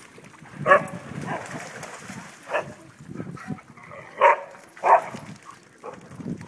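Dogs barking in play, about four short sharp barks, two of them close together near the end, with water splashing as they wade in a shallow creek.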